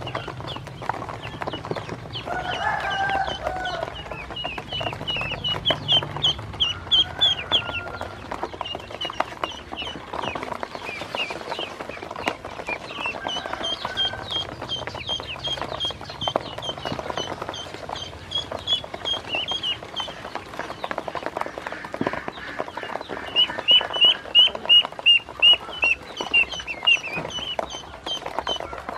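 A brood of ducklings peeping in quick runs of short, high calls as they feed from a plastic basin, with the loudest runs twice, once early and again near the end. Their bills keep up a scatter of light taps and clicks on the plastic.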